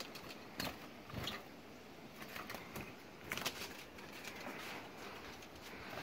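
A few faint, brief calls from caged Eurasian siskins, scattered over the seconds.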